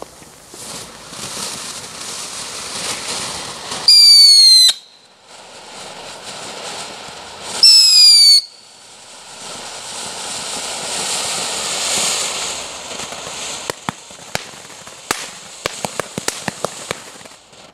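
Nico Mini Chuku Chuku ground fountain burning: a steady hiss of sparks, broken twice by a loud, shrill whistle lasting under a second and falling slightly in pitch, about four and eight seconds in. Near the end, a run of sharp crackling pops.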